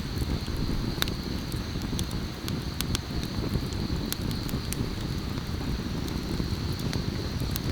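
Campfire crackling: scattered sharp pops over a steady low rumbling noise.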